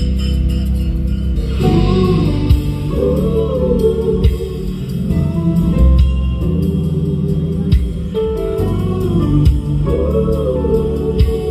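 Music with heavy bass and a sung melody, played loud through a car audio system's stacked speaker wall. The voice comes in about two seconds in.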